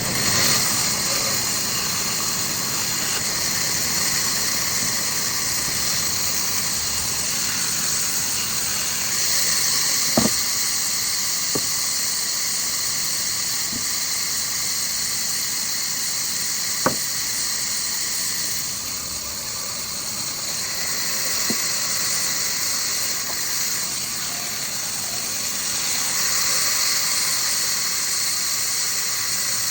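Wood-cutting machine running steadily with a hissing, high whine, with a few sharp knocks now and then.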